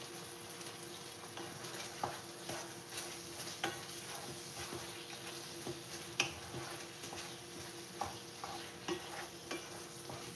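Sliced beef kielbasa, red pepper and shallots sizzling steadily in a skillet, stirred with a wooden spatula that scrapes and knocks against the pan in irregular clicks every second or so.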